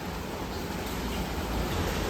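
Steady rain falling, an even hiss that grows slightly louder.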